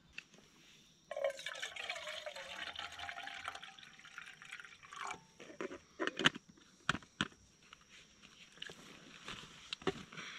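Water poured from a plastic bottle into a camping cooking pot, its pitch slowly rising as the pot fills, for about three seconds. A few sharp knocks and clicks of handling the bottle and pot follow.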